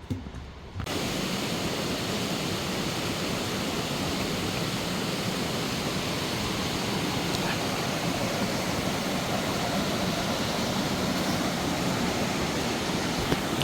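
Rushing water of a rocky mountain stream, a steady, even rush that starts suddenly about a second in.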